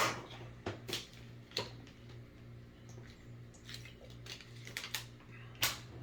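A person drinking water, heard as a few scattered clicks and light knocks from handling the drink, the loudest at the start and another near the end, over a steady low hum.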